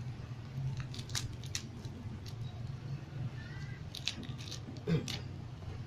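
Scissors snipping through a plastic parcel wrapping in a handful of irregular sharp cuts, with crinkling of the plastic, over a steady low hum.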